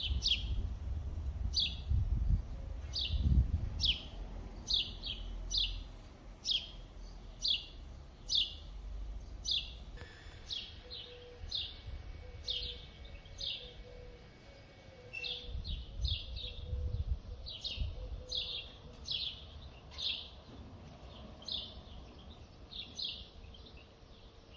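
A small bird chirping over and over: single short, high, downward chirps about once a second. There is a low rumbling noise in the first few seconds.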